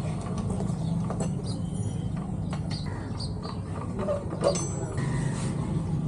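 Repair-shop background noise: a steady low hum with scattered small clicks and taps, the loudest a sharp click about four and a half seconds in.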